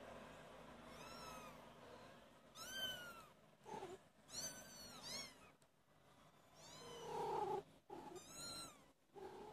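Four-week-old kittens mewing in short, high-pitched calls, each rising then falling in pitch, about half a dozen spread across a few seconds, with a few lower, shorter calls in between.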